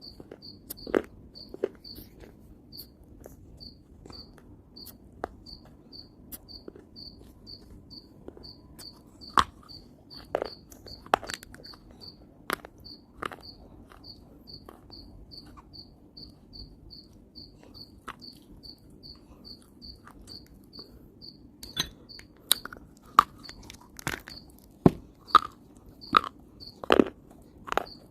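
Chunks of dry clay being bitten and crunched in the mouth: scattered sharp crunches, coming thick and fast in the last few seconds. A faint high chirp repeats about twice a second behind them.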